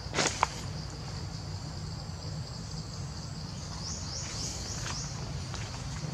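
Steady high-pitched drone of forest insects over a low rumble. Two sharp clicks come just after the start, and about four seconds in there is a quick run of about five rising chirps.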